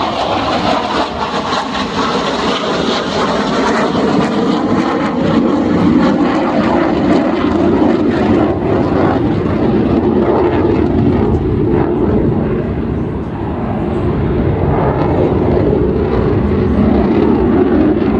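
Loud, steady engine roar of military aircraft flying low overhead at an air show, easing slightly about two-thirds of the way through.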